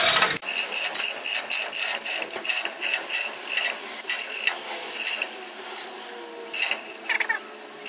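Hand ratchet wrench clicking in quick, uneven strokes, several a second, as fasteners are worked loose.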